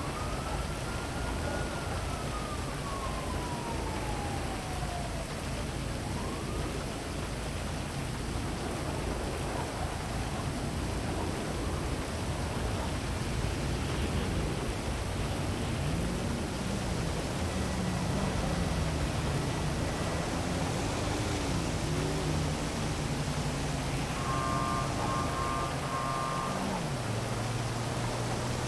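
Heavy rain falling steadily over a city. A siren wails and slowly falls away in the first few seconds. In the second half a low vehicle engine drone rises and falls, with a brief beeping about three-quarters of the way in.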